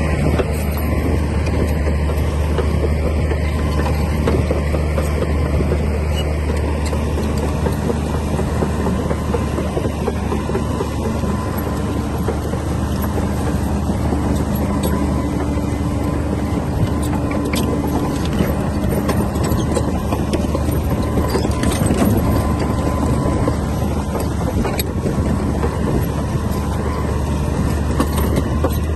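Komatsu D60P bulldozer's diesel engine running steadily under a low drone, with scattered metallic clicks and clanks from the machine at work, thickest in the middle.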